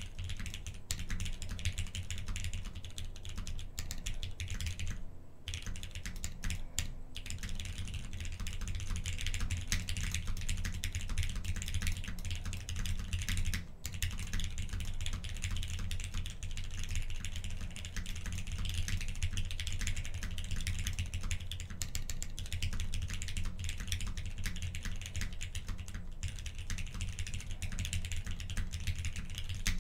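Continuous fast typing on a Gok 7V mechanical keyboard with Krytox 205g0-lubed Cherry MX Black Hyperglide linear switches on a polycarbonate flex plate and CRP keycaps: a steady stream of key clacks with a few brief pauses.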